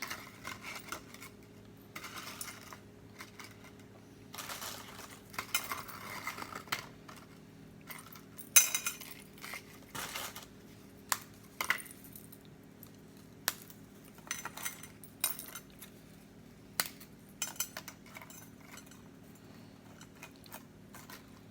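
Dishes and cutlery being handled and set down on a kitchen counter: scattered clinks and clatters with some rustling, over a steady low hum.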